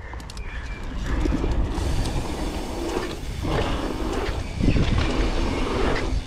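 Downhill mountain bike rolling fast over a packed-dirt trail: a steady rumble of knobby tyres on dirt with chain and frame rattle and wind on the camera's microphone, growing louder from about a second in, with heavier jolts near the middle as the bike runs over the rollers.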